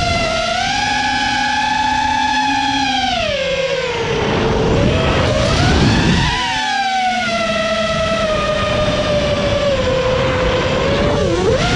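Motors and propellers of a 5-inch FPV quadcopter, heard from onboard, whining with throttle changes. The whine holds high at first, drops about four seconds in under a rush of wind, climbs back and settles into a steady pitch, then dips sharply near the end.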